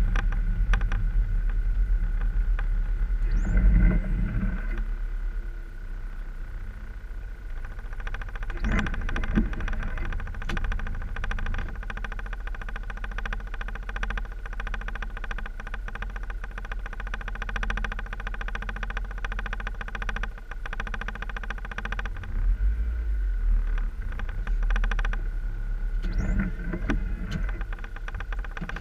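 Car-interior noise in slow city traffic on a wet road: a steady low engine and road rumble, louder in the first few seconds as the car rolls, then quieter as it slows to a stop. Over it a fine, rapid rattle runs through the middle part.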